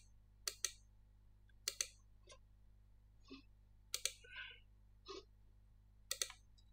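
Computer mouse button clicking in close pairs, four times, with a few fainter short noises between.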